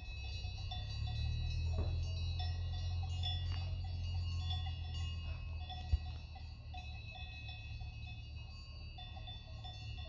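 Background music: several sustained high ringing tones over a steady low drone, with a brief click about six seconds in.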